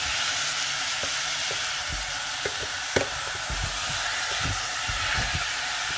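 Onions, carrots and steak frying in oil in a pan: a steady sizzle, with a utensil stirring and knocking against the pan now and then.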